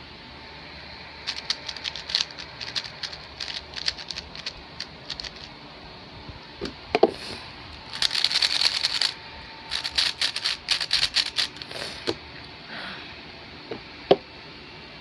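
A plastic 3x3 speedcube being turned very fast by hand: rapid runs of clicking and rattling, the densest around eight to nine seconds in, with a few single louder knocks, the loudest near the end.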